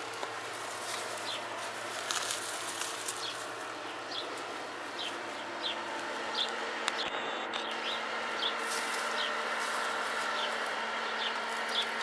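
A small bird chirping in the garden: short, high, slightly falling chirps repeated about once a second, pausing briefly near the middle, over a steady outdoor background with a faint hum.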